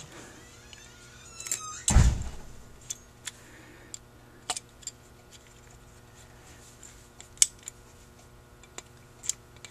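Small metal clicks and ticks of needle-nose pliers and a die-cast carburetor body being handled while a tiny retainer is fitted onto the accelerator pump linkage, with a quick run of ticks and then one heavier knock about two seconds in.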